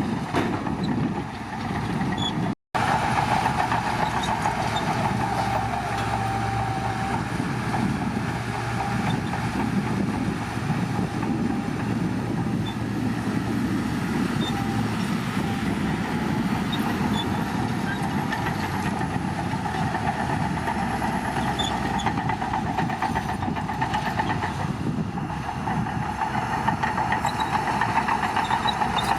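Shantui bulldozer's diesel engine running steadily at work, with a constant high whine over a dense low rumble. The sound cuts out completely for a moment about two and a half seconds in.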